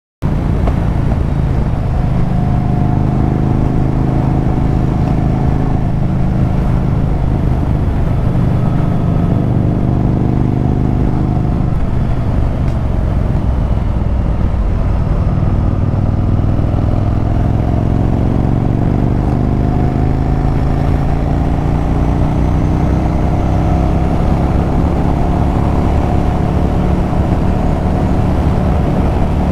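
Yamaha Virago 1100's air-cooled V-twin engine and exhaust running hard on the road. Its pitch holds fairly steady at first, drops off about halfway, then climbs gradually as the bike accelerates through the second half.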